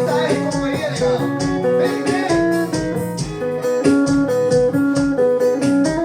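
Instrumental break of an arrocha song: a guitar-led melody over a steady beat and bass line.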